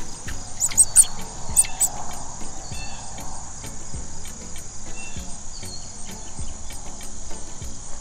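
Outdoor nature ambience: a steady, high-pitched insect trill with evenly repeating ticks, and a few sharper high chirps in the first two seconds.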